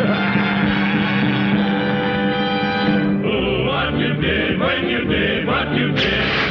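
Cartoon score music: a sustained held chord for about three seconds, then a busier, faster-moving passage.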